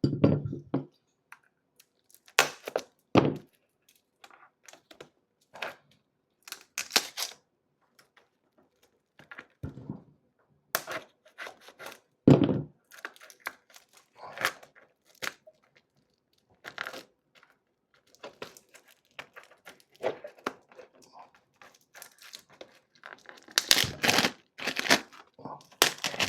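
Cellophane wrap being torn and peeled off a perfume box: scattered tearing and crinkling with occasional knocks of the cardboard box being handled, turning into dense crinkling near the end. The plastic is tough and resists being torn.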